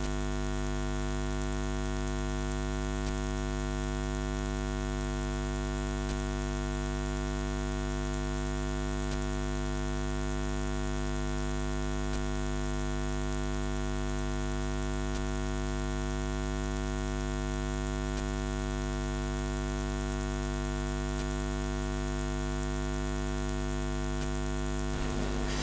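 Steady electrical mains hum and buzz, a constant stack of low and higher tones that holds at one level without change.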